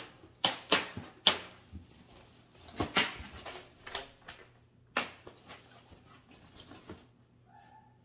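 A cardboard shoebox and its paper packing being handled and opened: a string of sharp rustles and knocks, thinning out after about five seconds, with a brief squeak near the end.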